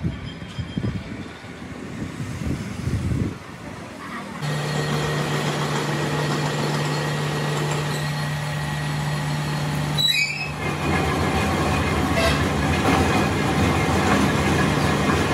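Irregular knocks and rumble, then from about four seconds in a lathe running with a steady motor hum. The hum breaks off briefly about ten seconds in and resumes.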